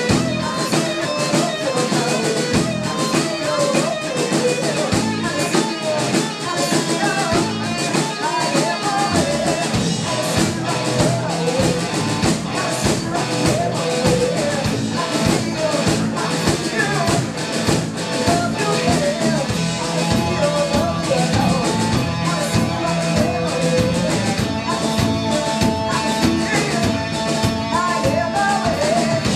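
A hard rock band playing live: electric guitar, bass guitar and a drum kit, with a woman singing lead vocals.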